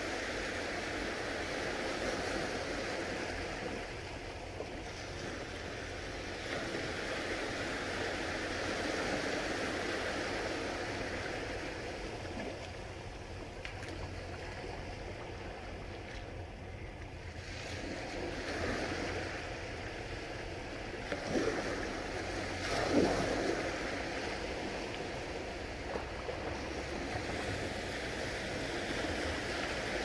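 Small sea waves lapping and washing on a beach shore, a steady hiss that swells and eases, with two short louder splashes a little past two-thirds of the way through.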